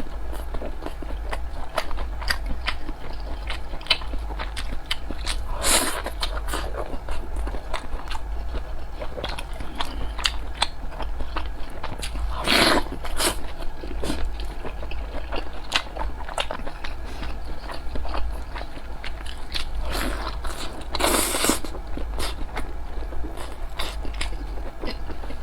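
Close-miked chewing of soft steamed dumplings: a steady run of wet, clicking mouth sounds, with three longer, noisier sounds spread through, over a steady low hum.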